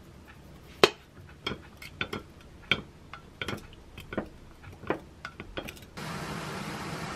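A wooden spoon stirring a sauce in a glass mug, knocking against the glass in sharp clinks about every 0.7 seconds, the first the loudest. Near the end a steady hiss from a pot of water on a gas stove takes over.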